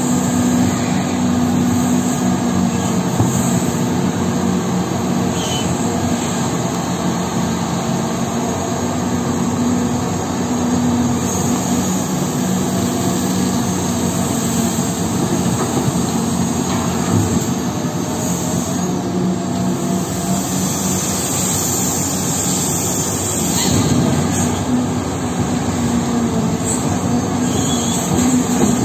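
Caterpillar 6030 hydraulic mining excavator running steadily under load as it digs rock and loads a haul truck, a constant heavy diesel drone. A stretch of high hiss comes in about twenty seconds in.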